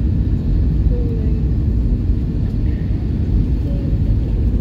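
Steady low rumble of an Airbus A320 heard from inside the passenger cabin as it descends to land: engine and airflow noise.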